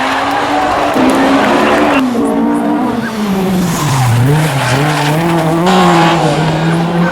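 Rally car engine at full load on a stage, its pitch rising and falling repeatedly as the driver shifts gears and lifts off and back on the throttle.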